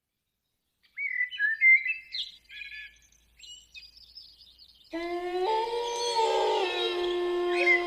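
Small birds chirping in short high calls, then about five seconds in a chorus of wolves starts howling: several long, steady howls at different pitches held together, with the birds still chirping above them.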